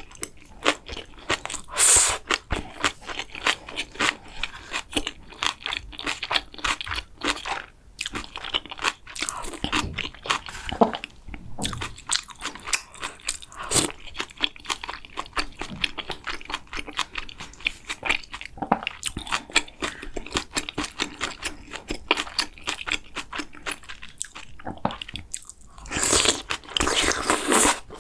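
Close-miked eating: chewing and biting with many small, irregular crunches and clicks. There are louder noisy bursts about two seconds in and again for a second or two near the end.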